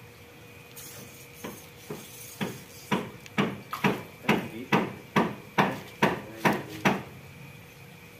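About a dozen sharp knocks, each with a short ringing tail, evenly spaced at about two a second; they start a second and a half in and stop near the end.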